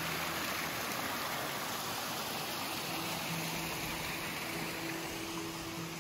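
Steady rushing noise, with faint background music holding low notes underneath.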